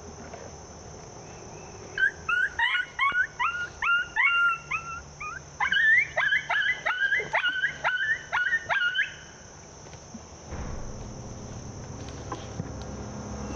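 Rapid coyote yipping: many short, high, rising yips, sometimes overlapping, in quick succession for about seven seconds, then stopping. A low steady rumble follows near the end.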